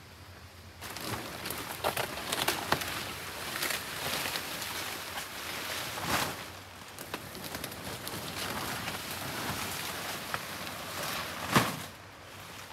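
Large banana leaves rustling and brushing against the undergrowth as they are carried through the forest, with footsteps on the leaf litter. Many short crackles, and one louder crackle near the end.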